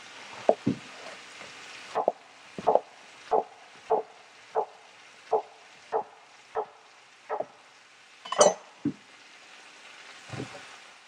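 Knife chopping zucchini on a wooden cutting board: a steady run of sharp knocks about every two-thirds of a second, with one louder knock about two-thirds of the way through and a last one near the end.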